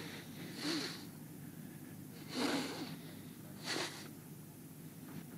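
Three short, sharp breaths from a person, about a second and a half apart, the middle one the loudest.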